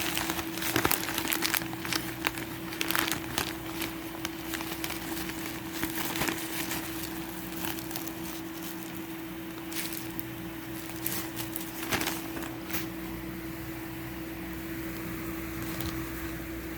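Shipping-package rustling and crinkling as a hand works inside a torn-open mailer, with irregular crackles and taps that thin out after about twelve seconds. A steady hum runs underneath.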